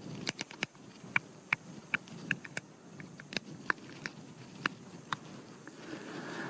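More than a dozen short, sharp, irregularly spaced clicks made with the mouth: small, odd noises meant to draw a curious dingo closer.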